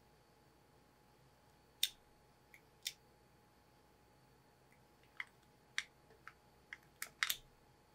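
Scattered light clicks and taps, about nine, starting about two seconds in and bunching up near the end, as the cells of a new battery are pressed and seated into an opened 2017 13-inch MacBook Pro's aluminium case. Faint steady room tone underneath.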